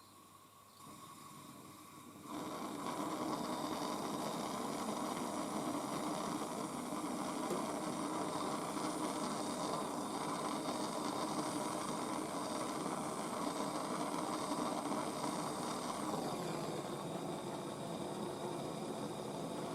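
MAPP gas torch flame hissing steadily as it heats copper for soldering; it comes on suddenly about two seconds in.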